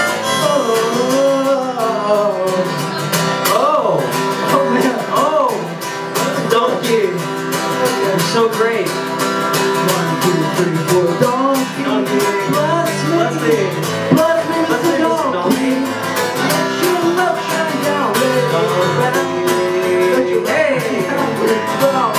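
Acoustic guitar strummed steadily, with a singing voice carrying the melody over it, played live.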